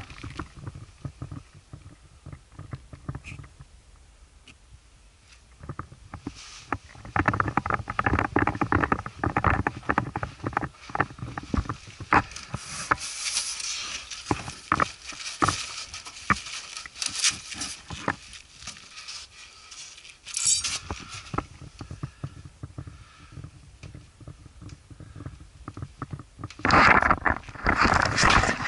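Irregular rustling, scraping and clicking handling noise as a polystyrene-and-cardboard target box is handled, mixed with footsteps on carpet. There is a loud rustle near the end.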